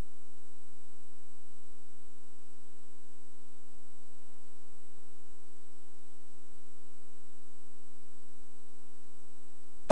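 Steady electrical mains hum: a buzz made of several held tones that do not change.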